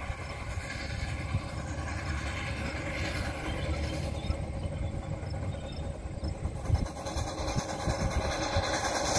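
Steam locomotive approaching from a distance, growing louder toward the end, over a low rumble of wind on the microphone.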